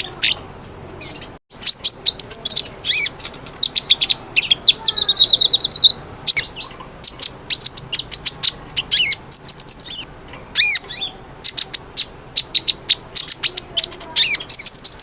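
Van Hasselt's sunbird (kolibri ninja) in full, prolific song: a fast, busy string of short high chirps and quick rising and falling whistles, with a very brief gap about a second and a half in.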